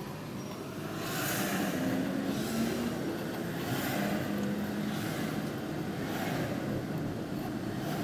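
A car driving, its engine and road noise heard from inside the cabin, growing louder about a second in as the car pulls away through a turn, with a low engine hum underneath.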